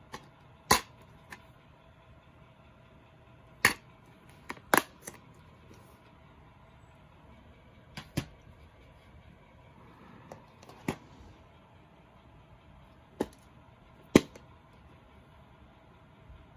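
Plastic DVD keep cases clacking against each other as they are handled and stacked: about eight sharp clicks spread out, the loudest near the end.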